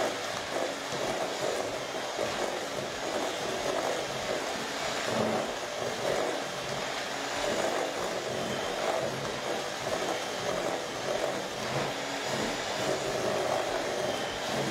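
Electric hand mixer running steadily, its twin wire beaters working a thick creamed butter-and-sugar mixture with an egg in a stainless steel bowl.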